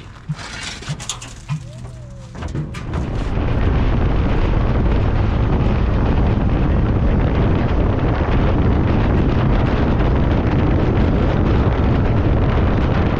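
A few light clicks and knocks, then about two and a half seconds in a vehicle engine comes up over a second and runs loud and steady with a deep hum.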